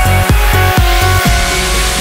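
Electronic dance music: a heavy kick drum about four beats a second under held synth notes. The beat drops out just past halfway, leaving a rushing noise sweep.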